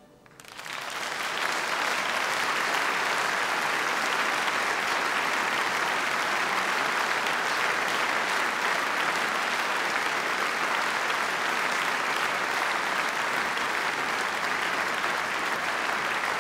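Audience applauding steadily. The clapping builds up over the first second or so and then holds at an even level.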